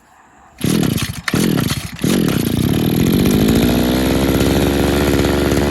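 Old RedMax edger's small two-stroke engine catching about half a second in, sputtering and stumbling briefly near two seconds, then settling into a steady run. It is drawing a dose of cleaner through the carburetor, which the owner hopes will clear a suspected clogged jet.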